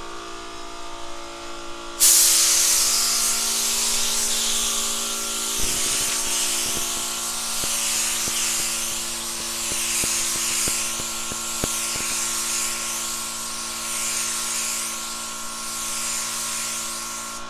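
Gravity-feed air spray gun hissing as it sprays base coat onto a car hood. The hiss starts about two seconds in and swells and fades with each pass. Under it runs a steady electric hum.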